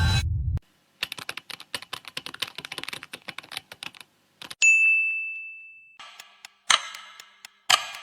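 Edited sound effects in sequence: about three seconds of fast keyboard typing, then a single bell ding that rings out for over a second, then loud ticks about once a second like a clock. A low noisy sound from the previous effect cuts off about half a second in.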